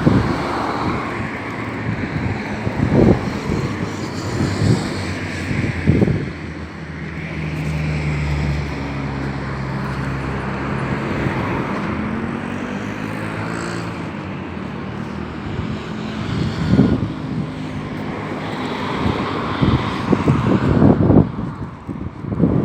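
A motor vehicle engine running, its pitch shifting up and down in the middle, with a few short knocks.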